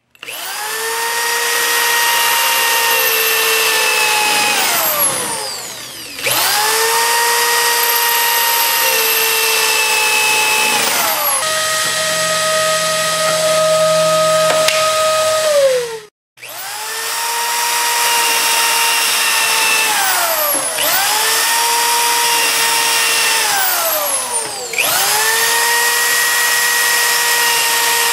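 Electric drill with a spear-point tile and glass bit boring into ceramic tile, run in about six bursts of several seconds each. Each time the motor whine rises as it speeds up, holds steady over the grinding of the bit in the tile, then falls away as the drill winds down.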